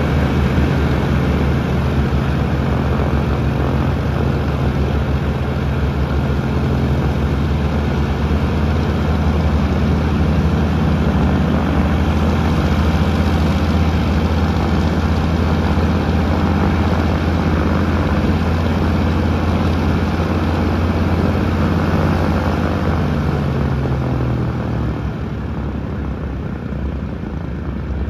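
Douglas C-47 transport's twin Pratt & Whitney R-1830 radial engines running at low power with a steady propeller throb as it taxis. Near the end the engine note drops and the sound eases off slightly as power comes back.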